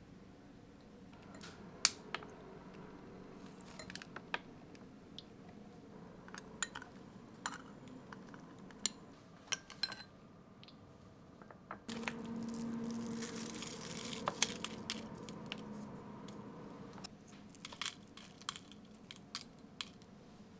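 A metal spoon clinks and scrapes against a small glass bowl of avocado chunks in a series of sharp taps. A little past the middle comes a few seconds of crackly rustling as dried nori seaweed is torn and crumbled over the bowl, then more spoon clinks.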